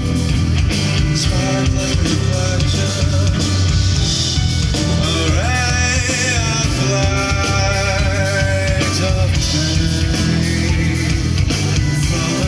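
A live rock band plays through a festival PA: a singer over keyboards and electric bass guitar, with a long, wavering sung note about five seconds in.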